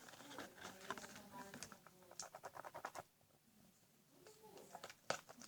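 Faint irregular clicking and scraping of a utensil stirring slime in a bowl, with a single sharper click about five seconds in.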